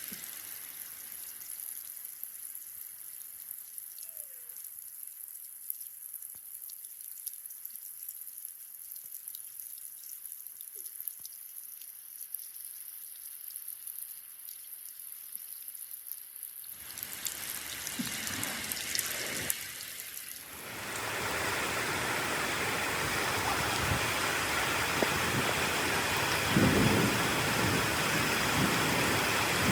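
Rain falling as a light, thin hiss, which changes between about 17 and 21 seconds into a much louder, steady downpour. Low rumbles of thunder come near the end.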